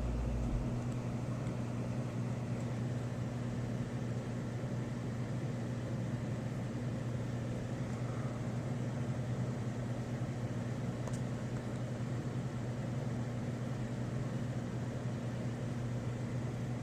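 Steady rushing of storm wind, without distinct gusts, with a constant low hum underneath.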